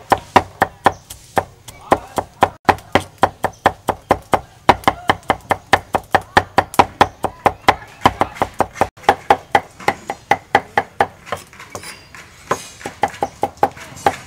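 Cleaver chopping garlic on a round wooden chopping board: quick, even knocks about four to five a second, with a short pause near the end before the chopping picks up again.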